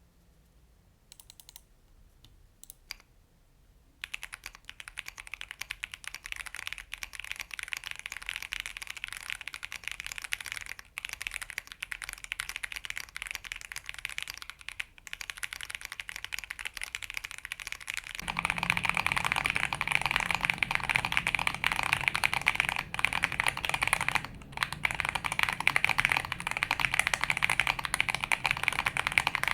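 Typing on a Gerald65 mechanical keyboard with stock Wuque Studios Black tactile switches, a POM plate, a stacked acrylic case and PBT ASA-profile keycaps. A few separate key presses come first, then steady fast typing from about four seconds in. It grows louder and fuller past the middle.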